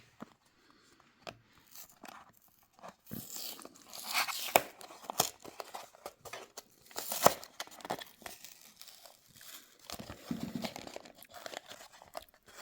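A Matchbox diecast model's cardboard-and-plastic blister pack being torn and pried open by hand: irregular tearing, crinkling plastic and small clicks, busiest about halfway through.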